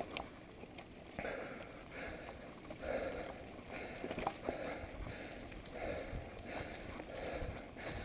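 Mountain bike rolling along a dirt trail: tyre and wind noise with small knocks and rattles from the bike, and the rider's heavy breathing, about one breath a second.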